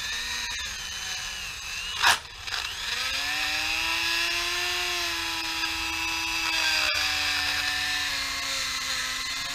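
Corded rotary tool spinning a cleaning bit inside a pressure washer pump head's check-valve bores: a steady high motor whine whose pitch rises a little about three seconds in and sags slightly later as the bit loads. A brief louder scrape about two seconds in.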